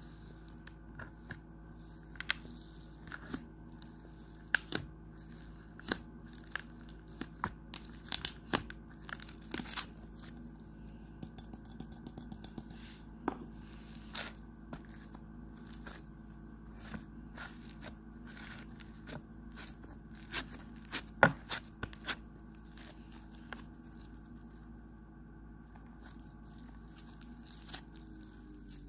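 Pink snow fizz slime being poked and kneaded by hand, giving scattered crisp crackles and pops, over a steady low hum.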